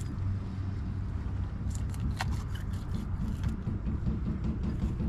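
Steady low rumble, with scattered light clicks and snicks from a knife cutting mullet for crab-trap bait, starting about two seconds in.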